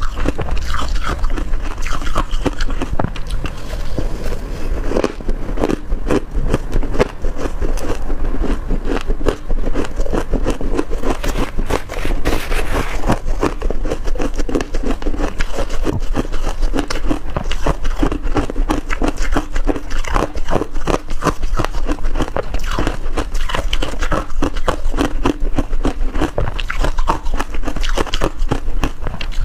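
Freezer frost being bitten and chewed up close: a dense, continuous run of crisp crunches and crackles.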